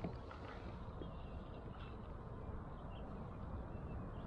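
Quiet outdoor ambience on the water: a low, steady rumble with a few faint, short high chirps.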